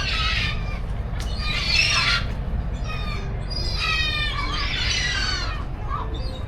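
Birds squawking, several separate harsh calls a second or so apart, over a steady low rumble.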